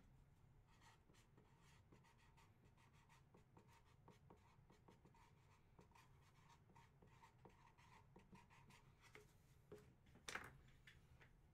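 Near silence with faint small clicks and scratches of objects being handled on a table, and a short louder rustle about ten seconds in.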